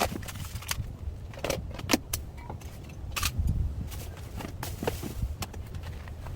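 Irregular sharp clicks and clinks, a dozen or so, over a steady low rumble.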